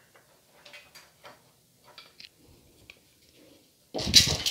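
Faint scattered ticks and crackles of roasted split chickpeas sitting in warm ghee in a steel pan on low heat. About four seconds in, a spatula starts stirring and scraping the gram across the steel pan, much louder.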